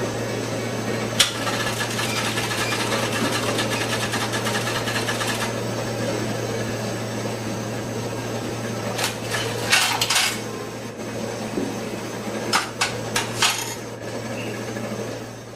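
ATM machine working over a steady low hum. A sharp click about a second in starts a mechanical whirring rattle that lasts about four seconds. Two clusters of clicks and clacks follow later.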